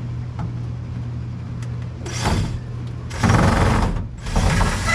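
Power drill-driver run in three short bursts, the last two loudest, backing a Phillips screw out of a tool chest top, over a steady low hum.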